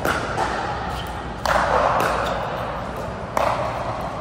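Pickleball paddles striking a hard plastic ball: a few sharp pops, the loudest about a second and a half in, each ringing on in the echo of a large indoor hall.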